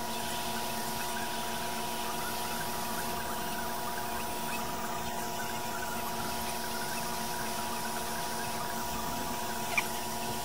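Hot-air rework station blowing steadily while reflowing flux-coated solder joints on a circuit board: a constant rushing with a steady hum of several tones under it. There is a single short click near the end.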